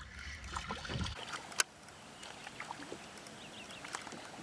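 Faint water and handling sounds from a small kayak, with scattered small clicks and one sharp click about one and a half seconds in.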